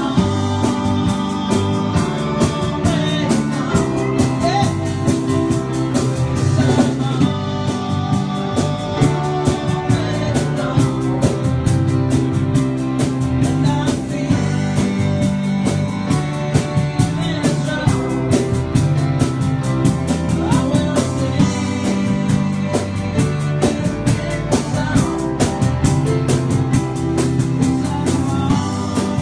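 Live band playing a rock song: a man singing over a digital piano, drum kit, electric guitars and pedal steel guitar.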